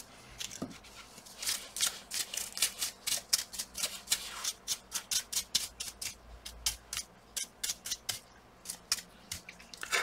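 Bristle brush being swept in quick, scratchy strokes over a laptop's motherboard and cooling fans, several strokes a second for most of the time and a few more near the end.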